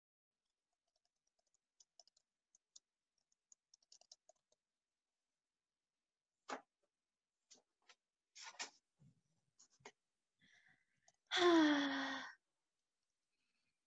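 Scattered light clicks and taps, faint at first and sharper later, then a person's short vocal sound with a falling pitch, about a second long, near the end.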